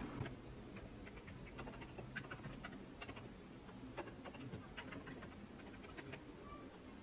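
Typing on a Realforce R2 keyboard with Topre electrostatic capacitive switches: a faint, uneven run of key strokes, beginning a moment in.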